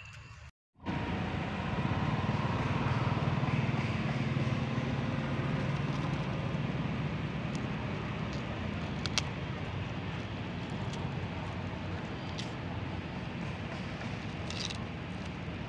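Steady low rumble of motor traffic, with a few faint sharp clicks in the second half.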